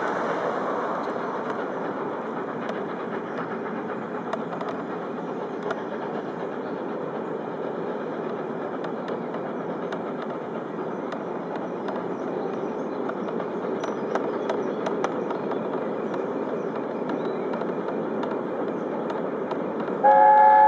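A4 Pacific steam locomotive and its train running steadily across a steel girder bridge: a continuous distant rumble with faint clicks. Near the end the locomotive's chime whistle starts, a loud chord of several steady notes.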